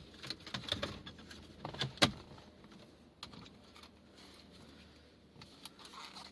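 Plastic wiring-harness connectors and cables being handled: scattered small clicks and rustling, with one sharp click about two seconds in.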